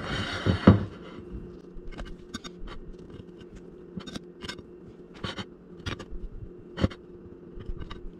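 A serrated knife cuts the crusts off slices of soft white bread on a plate. A rustling scrape with two knocks comes in the first second, then scattered light scrapes and clicks of the blade against crust and plate, one louder click near the end. A low steady hum runs underneath.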